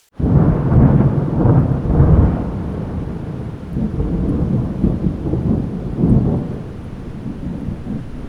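Thunder rolling in a rainstorm. A low rumble comes in suddenly just after a short silence, swells again several times and slowly eases, with rain behind it.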